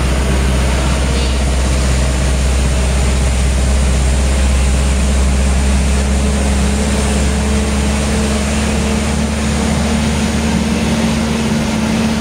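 Truck engine running steadily while driving, heard from inside the cab: a deep, constant drone with a steady hum that gets louder and rises slightly in pitch about halfway through.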